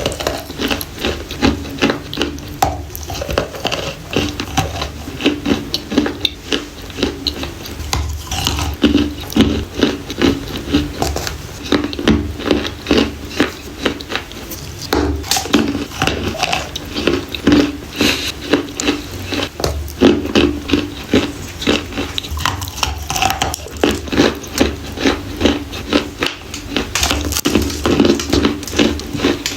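Close-up biting and chewing of dry edible clay: a steady run of crisp crunches, with louder bites about once or twice a second.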